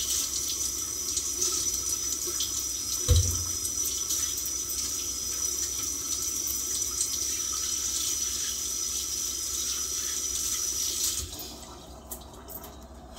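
Tap running into a sink while hands are washed under it, with one thump about three seconds in; the water shuts off about eleven seconds in.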